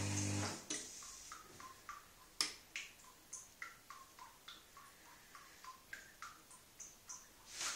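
Beko SMW 3508 washing machine near the end of a delicates cycle: its steady hum cuts off about half a second in. Faint water drips follow, each a short click with a brief ring, a few a second at uneven spacing.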